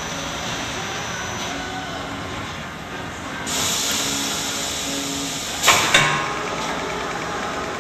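Acasi GI3100 pressure gravity filler running on its conveyor line with a steady machine hum. A hiss starts about halfway through, then two short, sharp hissing bursts come close together as the fill heads actuate over the jugs.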